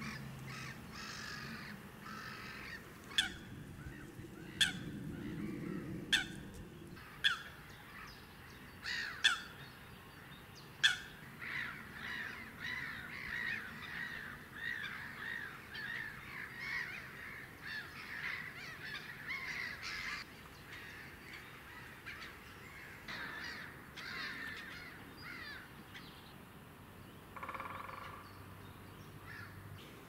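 Birds calling: half a dozen sharp, loud single calls a second or two apart, then a long run of quick repeated chattering notes, then scattered fainter calls and one short buzzy call near the end.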